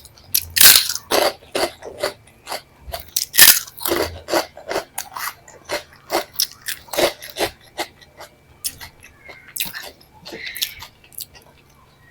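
A person eating close to the microphone, ASMR-style: irregular chewing and crunchy bites in quick clicks, loudest about half a second and about three and a half seconds in.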